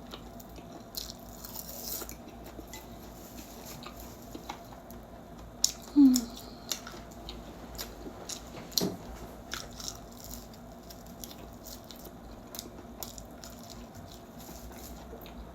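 Close-up eating sounds: chewing and biting on stir-fried laver seaweed with rice, with scattered sharp clicks. About six seconds in comes the loudest moment, a brief low sound sliding down in pitch.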